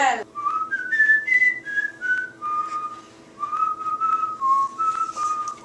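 A person whistling a short tune. The notes climb step by step and then fall back, break off briefly about three seconds in, then go on with a few more notes at a lower pitch.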